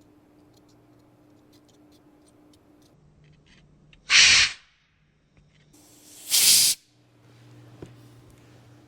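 Two short blasts of canned air, each about half a second, the second about two seconds after the first, blowing melted solder out of circuit-board terminals being desoldered.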